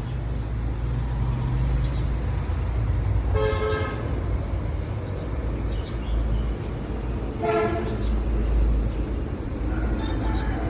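Two short honks of a vehicle horn, about four seconds apart, over a steady low rumble.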